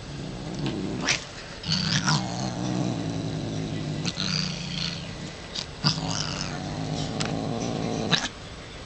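Domestic cat growling a long, low, drawn-out growl at a hand trying to pet her, with several sharp hisses breaking in: the warning of an irritated cat about to attack. The growl cuts off suddenly near the end.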